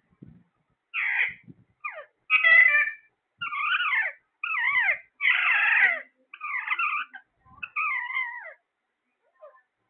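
A parrot calling: a run of about eight short calls with brief gaps between them, each wavering up and down in pitch.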